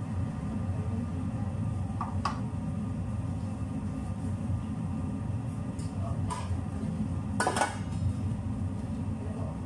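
A lid is set onto a cooking pot with a clink, the loudest about seven and a half seconds in. Lighter clinks of cookware come around two and six seconds in. A steady low rumble runs underneath.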